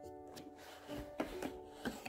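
Cardboard rubbing as a small box slides out of its sleeve, with a few light taps later on, over soft background music with held notes.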